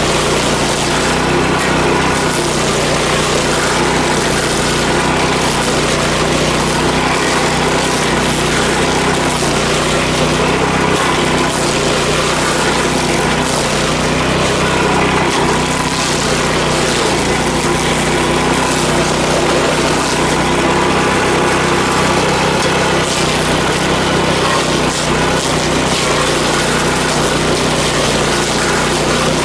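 Stump grinder running steadily, its engine holding an even, unchanging pitch with no sharp knocks.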